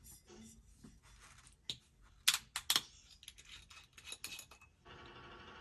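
Screw cap of a wine bottle being twisted open: a run of short, sharp metallic clicks as the seal gives, the loudest three coming close together about two and a half seconds in, followed by a few smaller ticks.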